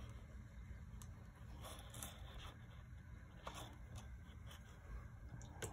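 Faint scratching and light taps of a watercolour brush and paper being handled on a wooden desk, a few short ones scattered through, over a low steady room hum.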